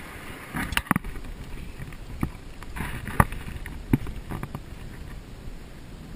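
Low wind rumble on the microphone, broken by a handful of sharp, irregular clicks and knocks, the loudest about three seconds in.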